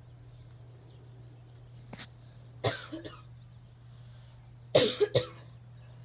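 A person coughing: one cough about two and a half seconds in and a double cough near the end. Under it runs the steady low hum of the Aloha Breeze ceiling fan's motor on slow speed.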